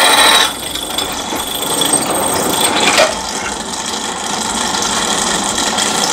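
Bench drill press boring a 6 mm pilot hole through very hard steel: a loud, shrill cutting noise that stops about half a second in, after which the drill keeps running more quietly, with a single click about three seconds in.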